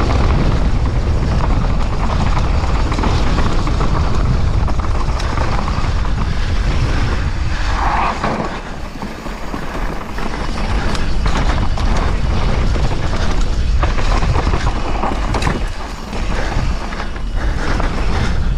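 Wind buffeting the microphone of a downhill mountain bike's mounted camera at speed, with the tyres crunching over dry dirt and loose rocks and the bike rattling and clattering over the rough ground. It eases briefly about eight seconds in and again around sixteen seconds in.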